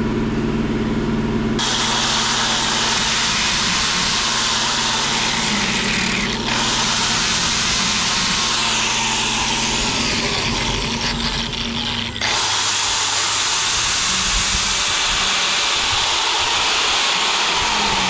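Electric angle grinder cutting through a steel roller-chain link to grind it off. Once the disc bites, about a second and a half in, it is a loud, steady grinding hiss over a motor whine that rises and falls with the load. It breaks off briefly about six and twelve seconds in.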